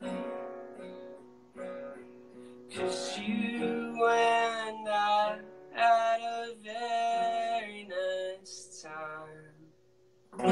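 Solo acoustic guitar strumming the closing of a song. A few single chords ring out and fade, then fuller strumming with a voice singing over it comes in about three seconds in. The music stops just before the end.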